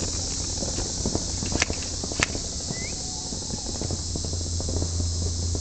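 Two sharp cracks about two-thirds of a second apart, typical of airsoft guns firing, over a steady high hiss and light rustling ticks.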